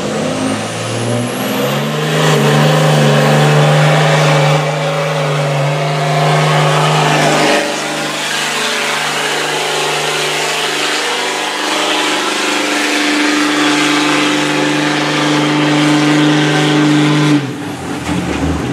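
Dodge Ram Cummins turbo-diesel pickup at full throttle, dragging a weight-transfer pulling sled. The engine revs up in the first couple of seconds with a high turbo whistle climbing over it, then holds high with a couple of pitch changes along the run. The engine cuts off suddenly near the end as the driver lets off.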